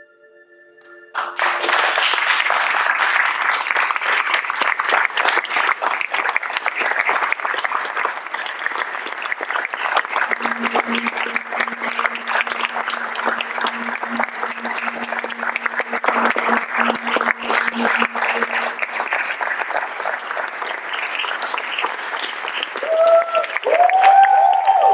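Theatre audience applauding, starting suddenly about a second in and going on steadily as the performers take their bow, with a few shouts and whoops of cheering near the end.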